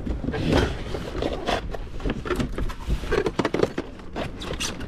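Cardboard box and its inner packaging being opened and handled by hand: irregular short scrapes, rustles and knocks of cardboard.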